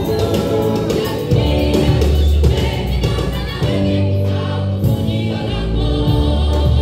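Gospel choir singing over a live band, with held bass guitar notes and drums beneath the voices.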